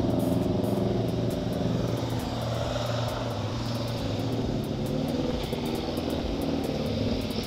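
A motor vehicle's engine idling with a steady low hum.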